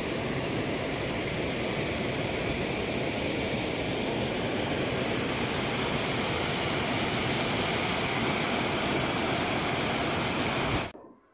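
A small waterfall cascading over rock, a steady rush of water that cuts off suddenly near the end.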